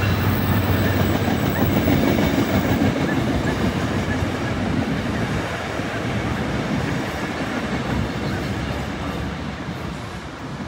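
Metrolink passenger train of bi-level coaches rolling past, its wheels and cars rumbling along the track. The locomotive's low hum dies away in the first second, and the rolling noise fades steadily as the cab car goes by.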